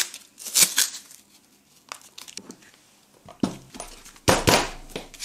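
Handling noises at a workbench as a printed part and a piece of wood are fitted together: scattered light knocks and clicks with rustling scrapes, the loudest near the end.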